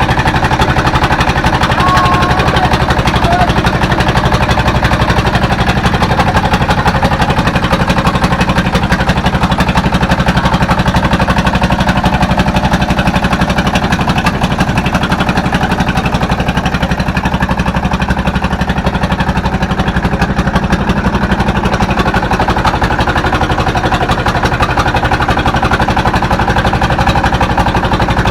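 A fishing boat's engine running steadily while the boat is under way, with a fast, even thrum that holds constant throughout.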